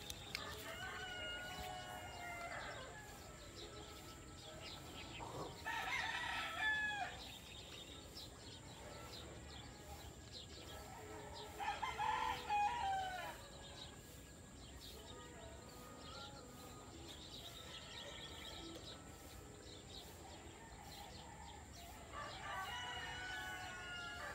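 Roosters crowing: four drawn-out crows, one at the start, one about six seconds in, one about twelve seconds in and one near the end. The middle two are the loudest.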